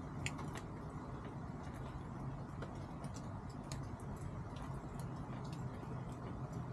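Chickens pecking at feed on the ground: scattered sharp ticks of beaks striking, irregular at about one or two a second, over a steady low hum.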